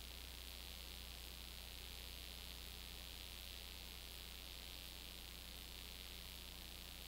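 Steady hiss with a constant low electrical hum underneath, unchanging throughout: the noise floor of a transfer of a silent film, with no sound from the scene itself.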